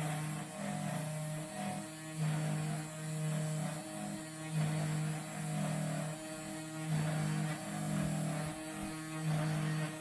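Genmitsu 3018-PROVer V2 desktop CNC router running a carving job in cedar: a steady spindle whine, with the stepper motors humming in short moves that stop, start and change pitch every half second or so.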